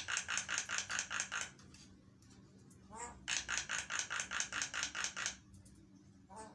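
Javan myna (jalak kebo) calling: a short rising note followed by a fast, harsh rattling chatter of about eight pulses a second. The pair is given twice, with another rising note near the end.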